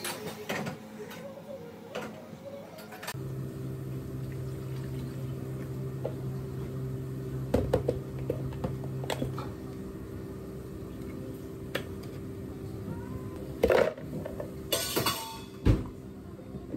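Clear plastic blender jar being filled for a frappe, with scattered knocks and clicks and, near the end, a brief clatter of ice cubes dropping into the jar followed by a thump, all over a steady low hum.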